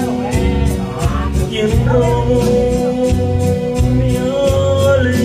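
A man singing into a handheld microphone over loud backing music with a repeating bass line and a steady beat.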